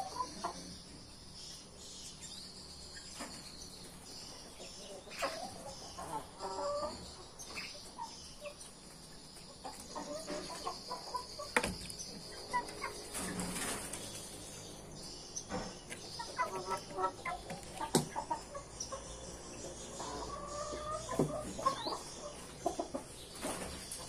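Domestic hens clucking softly in short, scattered runs of low calls while foraging, with a couple of sharp ticks and a faint steady high hiss behind them.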